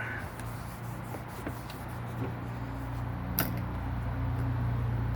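Light clicks and taps of a folding knife and small tools being handled on a work surface, with one sharp click about three and a half seconds in, over a steady low hum.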